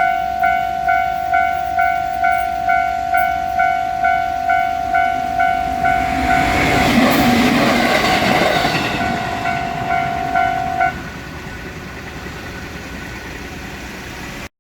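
Japanese railway level-crossing alarm ringing its repeated kan-kan bell tone, a little over two strikes a second, while a train passes through about six to ten seconds in with a loud rush of wheel and running noise. The bell stops about eleven seconds in, leaving a steady lower rumble.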